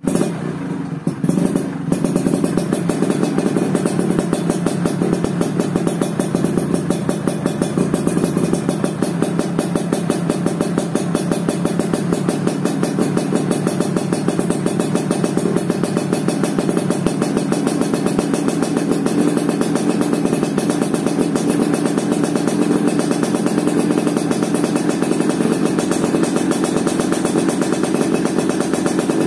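Yamaha RX two-stroke single-cylinder motorcycle engine running through an aftermarket 'lobster' expansion-chamber exhaust, giving a rapid, even exhaust beat. It holds steady after a brief dip in the first couple of seconds.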